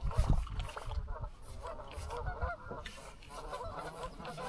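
Geese honking, many calls overlapping as from a flock, thinning out midway and picking up again near the end, with a few low knocks in the first second.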